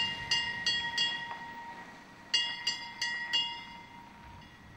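A bell-like tone struck four times in quick succession, all at the same pitch and ringing on between strikes. The group of four repeats about two and a half seconds later.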